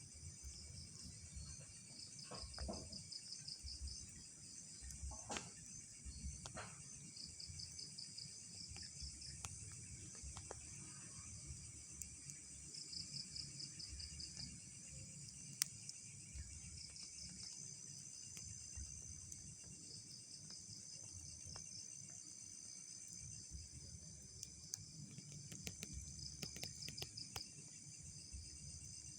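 Night insects, likely crickets: a steady high-pitched trill with bouts of rapid pulsed chirping every few seconds, over a faint low rumble.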